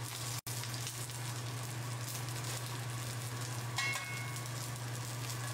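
Steak searing in a very hot cast iron skillet: a steady sizzle and crackle of the meat and fat in the pan, with a steady low hum underneath.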